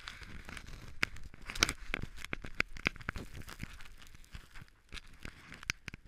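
Crunching, crackling handling noise from a rider shifting and getting up on snow with a body-worn camera: many irregular sharp clicks, the loudest about a second and a half in.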